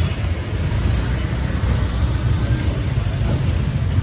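Steady low rumble of street traffic, motor vehicles passing close by.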